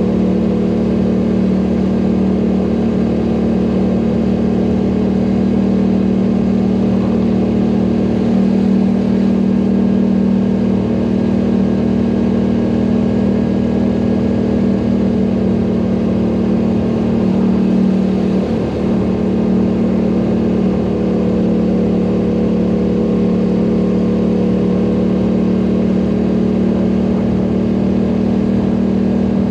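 ATV engine running steadily at an almost constant pitch while the machine is ridden, with only slight swells in level.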